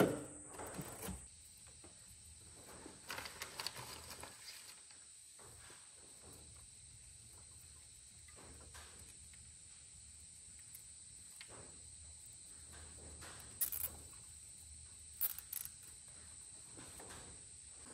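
Faint handling noise of wiring and plastic connectors being fitted and tidied in an engine bay: soft rustles and a few short clicks, the busiest stretch about three to four seconds in. A steady faint high-pitched whine runs underneath.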